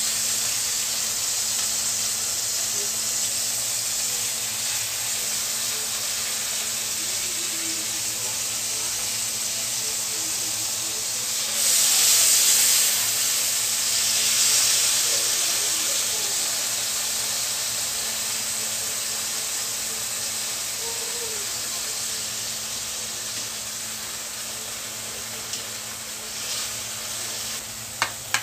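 Marinated beef slices sizzling in hot oil in a wok: a steady frying hiss that swells louder for a few seconds about twelve seconds in, while the meat is turned with tongs. A sharp click near the end.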